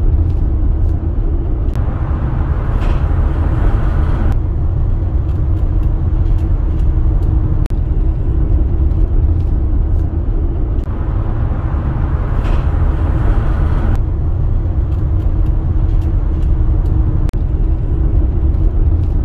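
Road and driving noise heard inside a Ford Transit van's cab lined with Kilmat sound deadening, insulation and a fitted floor: a steady low rumble. A louder hiss comes in about two seconds in and again about eleven seconds in, each lasting two to three seconds.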